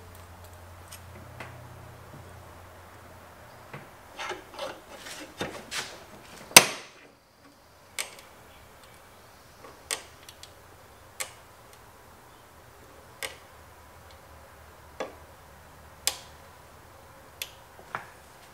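Metal clicks and clinks from a steel bench vise as its handle is turned to compress a motorcycle cam chain tensioner. A quick run of clicks about four to six seconds in ends in one sharp, loud click. After that come single clicks every second or two.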